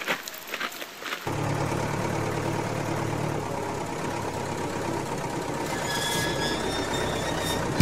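Gondola cabin and its cable running overhead: a steady mechanical hum and rumble that starts suddenly about a second in, with a faint high whine near the end.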